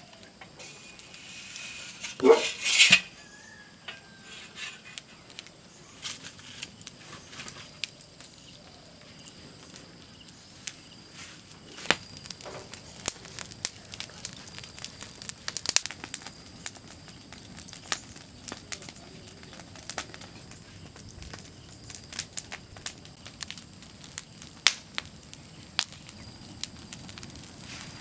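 Open wood fire crackling and popping, with scattered sharp snaps throughout. A brief louder rasping noise comes about two seconds in.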